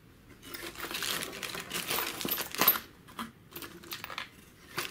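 Plastic bags of small parts crinkling as they are handled in a cardboard box, for about the first three seconds, then a few light clicks of small aluminium clamp blocks being set down on the table.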